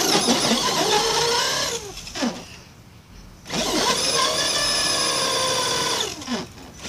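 Traxxas Stampede RC truck's electric motor whining at high throttle as the truck sits stuck on a plastic table leg with its wheels spinning. The whine revs up and down and winds down in a falling glide twice, cutting out for about a second near the middle and briefly near the end.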